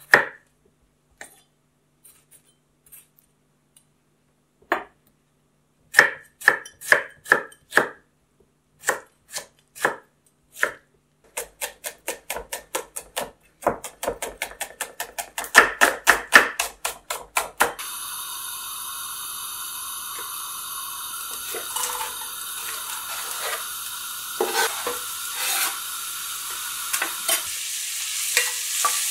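A chef's knife cutting through food onto a wooden cutting board: a few scattered strokes, then a run of regular knocks, then fast rapid chopping. About eighteen seconds in, a steady sizzle of food frying in a stainless steel pan begins, with a wooden spatula scraping as it is stirred.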